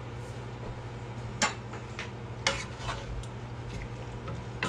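Wooden spatula stirring a thick chicken curry in a pan, with a few sharp knocks against the pan, the loudest about one and a half and two and a half seconds in, over a steady low hum.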